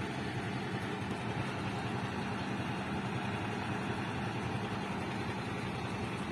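Heavy truck's diesel engine idling, steady and even in pitch.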